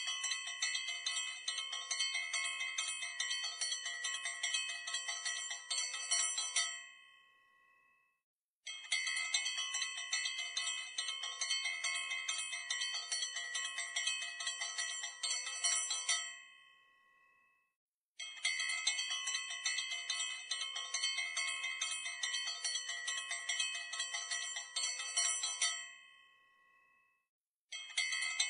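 Metal temple bell rung rapidly for the aarti, in runs of about seven seconds that each ring away into a short silence before starting again.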